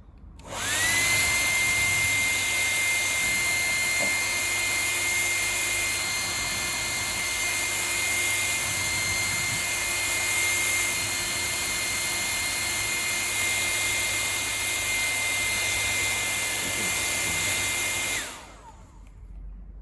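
Hair dryer switched on, running steadily with a high motor whine and rushing air for about eighteen seconds, then switched off, the whine falling away as the fan spins down.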